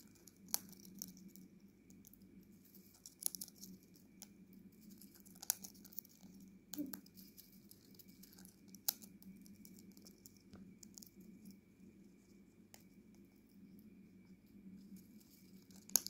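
African grey parrot cracking sunflower seeds with its beak and rummaging through the husks in a ceramic bowl: soft crackling and rustling with a few sharp cracks spread through it.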